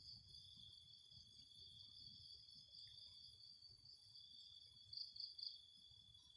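Faint, steady high-pitched chorus of insects trilling, with a few louder pulses about five seconds in.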